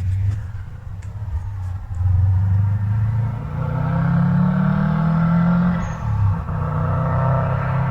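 A car engine revving: the pitch climbs over a few seconds, drops off briefly about six seconds in, then holds high again.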